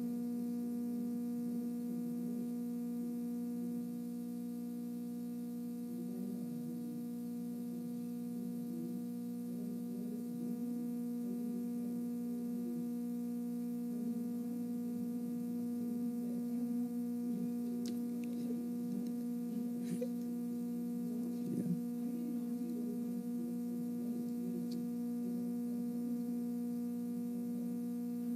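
Steady electrical mains hum: a low buzz made of several steady tones that holds at one level throughout. A few faint knocks and rustles come in the second half.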